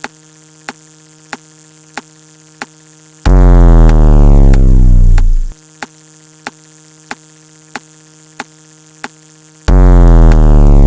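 Electronic sound effects: a steady buzzing hum with a sharp tick about every two-thirds of a second, cut twice by a very loud, distorted blast that falls in pitch for about two seconds, the first about three seconds in and the second near the end.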